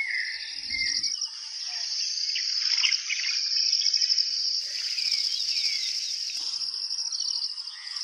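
Insects trilling steadily with a fast, even pulse, while birds chirp over them with short rising and falling calls. A brief hiss comes in near the middle.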